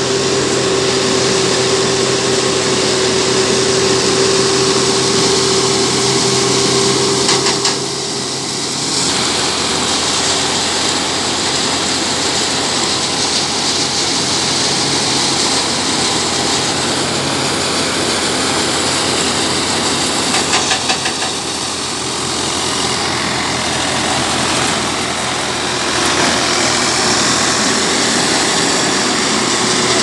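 Tractor-powered paddy thresher running steadily under the tractor's engine as rice stalks are fed in, a dense mechanical noise that dips briefly in loudness about eight seconds in and again about twenty-one seconds in.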